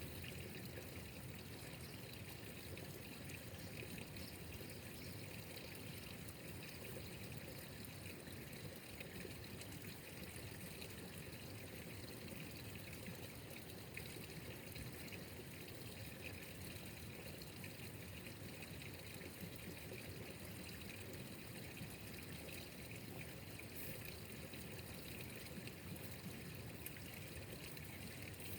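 Water trickling steadily, faint and unbroken.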